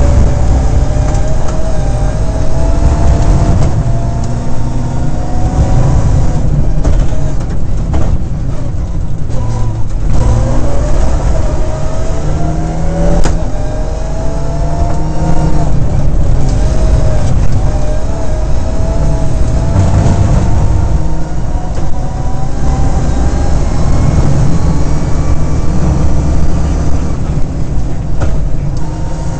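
Mitsubishi rally car's engine, heard from inside the cabin, pulling hard and climbing in pitch, dropping back at each gear change and climbing again, over a heavy low rumble.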